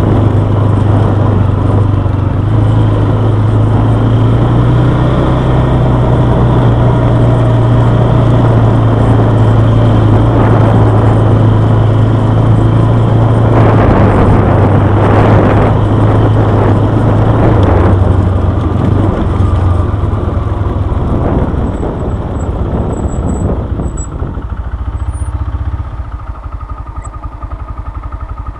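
Quad bike engine running steadily while riding a dirt track. About twenty seconds in the engine note drops, and over the last few seconds the sound falls away to a much quieter level as the bike slows.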